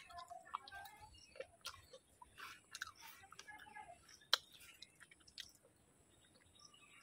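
A person chewing food with soft wet mouth sounds and lip smacks, with one sharper click about four seconds in and a quieter stretch near the end.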